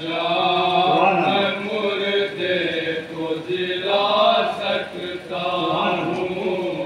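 Male voice chanting a nauha, a Shia lament, in long held melodic lines with short breaths between phrases.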